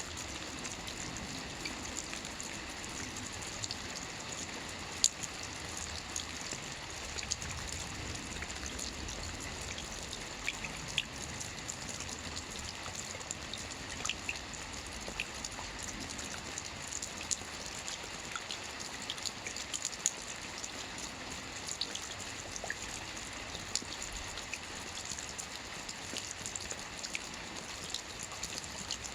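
Steady rain: a constant hiss of rainfall with scattered individual drops ticking through it, a few louder ones standing out.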